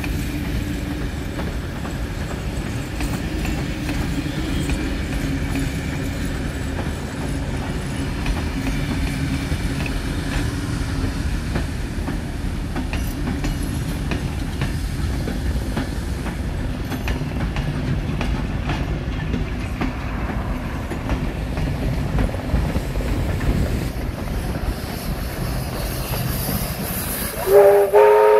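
Passenger carriages rolling past with a steady rumble, wheels clacking over the rail joints. About a second before the end, the Victorian Railways R class 4-6-4 steam locomotive R 766 sounds its steam whistle, a short loud blast that is the loudest sound.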